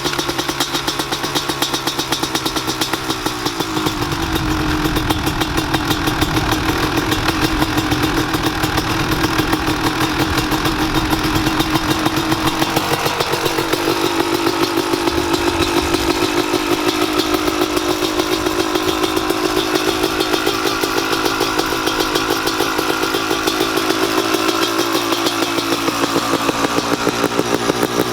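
Freshly rebuilt Kawasaki KX250's single-cylinder two-stroke engine running steadily. Its pitch rises about four seconds in and steps up a little again near the middle.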